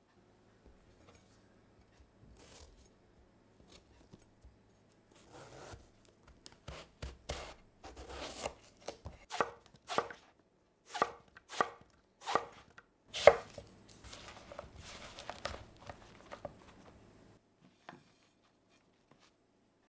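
Chef's knife slicing an aubergine on a wooden cutting board: about a dozen irregular strokes of the blade through the flesh onto the board.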